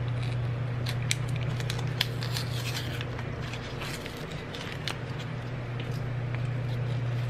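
Small plastic clicks and light rattles of a lemon pepper seasoning shaker being opened and handled over a plastic mixing bowl, over a steady low hum.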